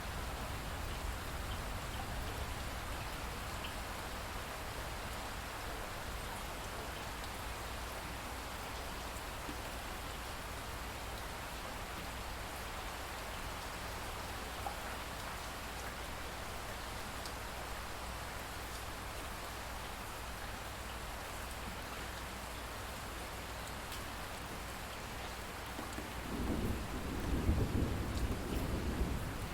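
Steady rain falling, with a low rumble of thunder rising near the end.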